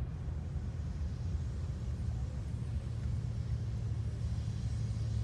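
Low, steady rumble with a humming tone that grows stronger near the end.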